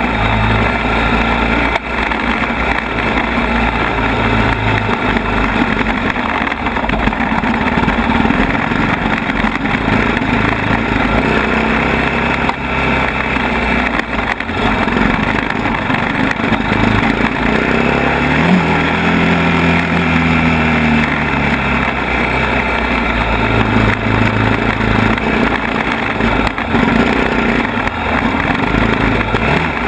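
ATV engine running continuously as it is ridden over a rough mountain trail, its speed rising and falling, with a sharp rev about eighteen seconds in that then winds back down.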